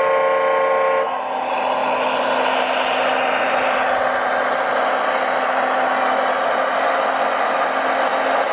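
A horn blast from an RC model truck, a steady horn tone that cuts off about a second in, followed by a steady mechanical running noise with a low hum.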